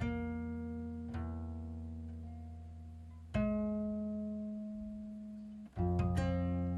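Slow, quiet instrumental melody: single notes and chords struck about every one to two seconds and left to ring and fade away.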